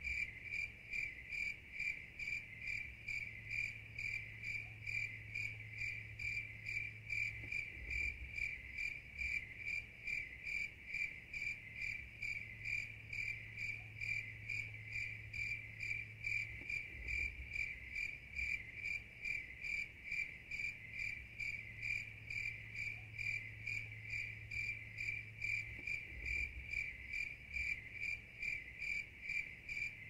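Crickets chirping in a steady, even rhythm on one high, shrill pitch.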